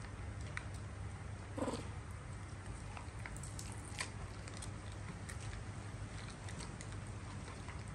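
A baby monkey gives one short, mewing squeak about a second and a half in, over a steady low hum with scattered light clicks.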